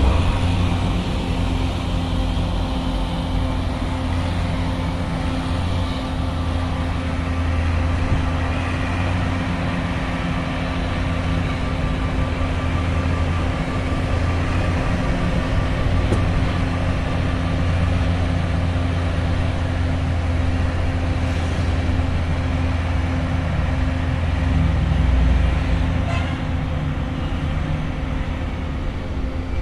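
An engine running steadily at an unchanging speed, with road traffic noise.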